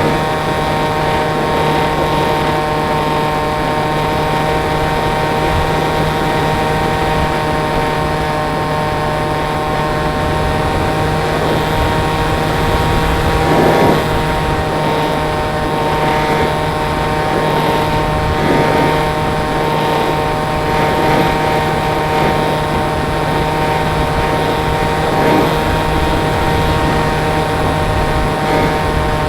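Pusher motor and propeller of an RC glider running at steady throttle, heard from the onboard FPV camera: a steady whine over a low hum, with a few brief swells of rushing noise.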